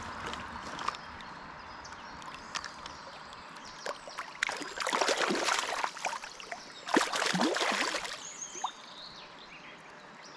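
Water splashing in two bursts, about five and seven seconds in, over the steady rush of a river.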